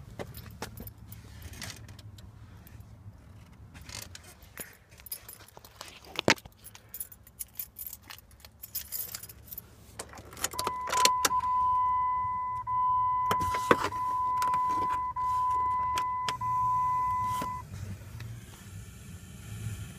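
Keys jangling and scattered clicks and knocks as the Jeep is entered, then about ten seconds in a Jeep dashboard warning tone sounds a steady high-pitched beep for about seven seconds, broken by a few brief dropouts, before cutting off.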